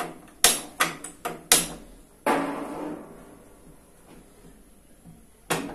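A hand-held spark gas lighter clicking four times in quick succession to light a gas stove burner, followed by a knock with a short metallic ring. Near the end, a single sharp clank, as of the stainless steel frypan being set onto the burner.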